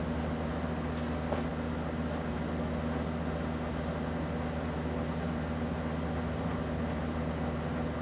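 Casablanca Delta II ceiling fan running at speed: a steady, even motor hum.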